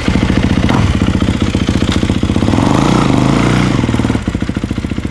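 2022 Kawasaki KX450SR motocross bike's four-stroke single-cylinder engine running, with a throttle blip about two and a half seconds in that rises and falls, then dropping back to a quieter idle about four seconds in.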